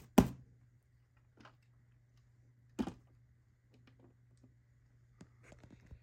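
Handling noises of polystyrene foam packaging on a wooden table: a sharp knock just after the start, a second knock near three seconds in, and faint rustles and ticks between.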